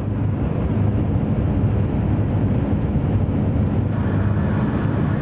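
Steady road and engine noise of a car travelling at highway speed, with a low, even hum throughout.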